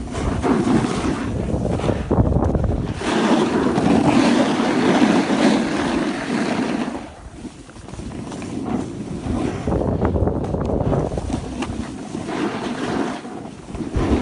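Wind buffeting the microphone while a snowboard scrapes and slides over choppy, cut-up piste snow. The rushing noise swells, drops briefly about seven seconds in, then picks up again.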